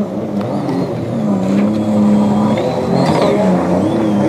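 Several jet ski engines running at high revs, their pitch wavering and then climbing near the end.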